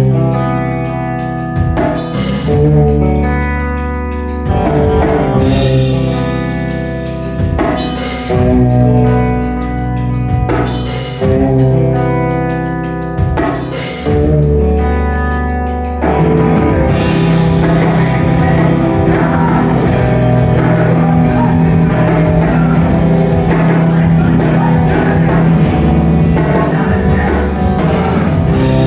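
Screamo band playing live: ringing electric guitar chords punctuated by occasional cymbal crashes, then about sixteen seconds in the full band comes in loud with fast drumming.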